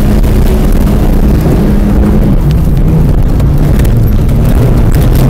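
Car engine running hard under load, loud enough to overload the recording, with its pitch dropping about two and a half seconds in.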